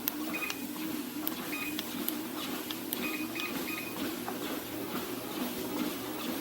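SupeRun walking pad under-desk treadmill running, its motor and belt giving a steady, slightly wavering hum. Short high electronic beeps sound about half a second in, again at about a second and a half, and three in quick succession around three seconds in.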